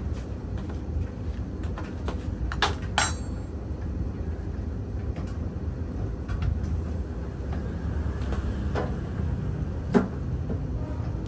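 A few sharp metallic knocks and clanks from work inside an opened laundry dryer cabinet, two close together about three seconds in and the loudest near the end, over a steady low rumble.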